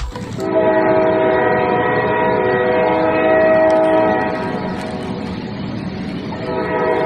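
Multi-tone train horn sounding continuously as a held chord over a steady low rumble of a running train. It swells, eases off somewhat past the middle, and grows louder again near the end.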